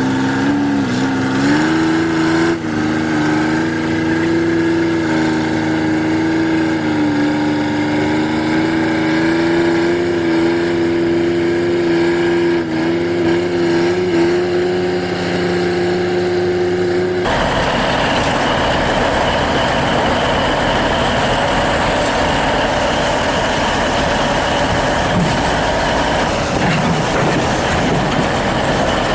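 Heavy vehicle engine running steadily with a slightly wavering hum. About seventeen seconds in it cuts abruptly to a harsher, noisier machine sound with a high whine.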